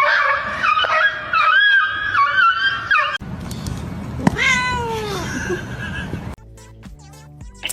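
Cat meowing, including one long meow that falls in pitch about four seconds in. Music takes over near the end.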